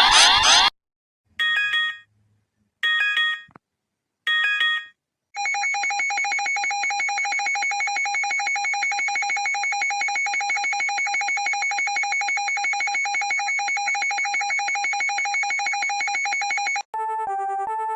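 Electronic emergency alert tones: a sweeping alarm cuts off under a second in, then three short chime-like tones sound about a second and a half apart, followed by a steady, rapidly pulsing alarm tone for about eleven seconds. Near the end it switches to an alternating two-note pattern.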